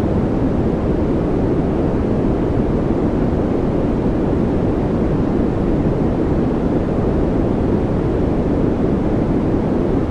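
Continuous steady noise of a white-noise relaxation track, a deep even rush weighted toward the low end, with no changes.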